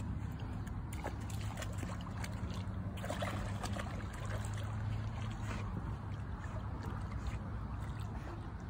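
A dog wading and swimming in river water, the water sloshing and splashing in small irregular splashes, thickest in the first half, over a steady low rumble.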